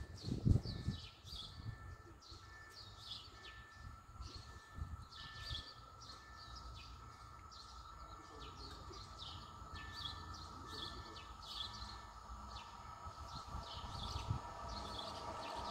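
Small birds chirping over and over in short descending notes, over low wind rumble on the microphone. Near the end a steady whine grows louder as a distant ED72 electric multiple unit approaches along the line.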